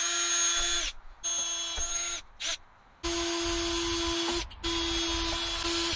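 Cordless drill running a small bit into metal tubing to drill pilot holes: a steady whine in four runs, with a short blip between the second and third, stopping and starting again as the trigger is released and squeezed.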